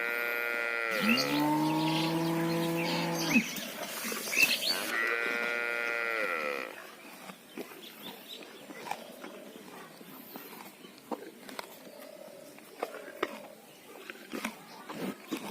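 Cattle mooing: a higher-pitched moo at the start, a deeper, lower moo from about one to three seconds in, and another higher-pitched moo about five seconds in. After that it is quieter, with a few faint clicks.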